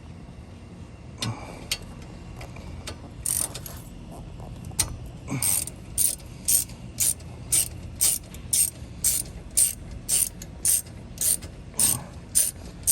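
Hand socket ratchet wrench clicking as it is swung back and forth while undoing bolts on the front brake: a few scattered clicks at first, then a steady run of about two clicks a second from about five seconds in.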